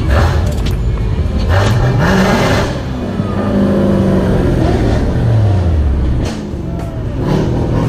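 Car engine revving, its pitch rising and falling several times, with a few sharp knocks near the start and end.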